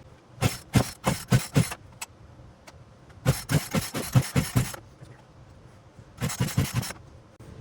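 Poulan Pro 42 cc two-stroke chainsaw being pull-started three times, each pull of the recoil starter cord turning the engine over in a quick run of pulses. The engine does not catch: the saw will not start.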